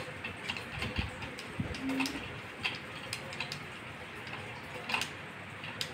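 Scattered light clicks and knocks as a statue-style quartz table clock is gripped and twisted on its figurine base.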